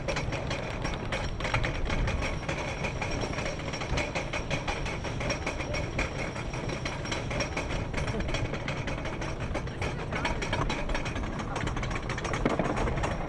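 Wooden roller coaster's lift-hill chain hauling the train up, with the anti-rollback dogs clacking over the ratchet in a fast, steady run of clicks.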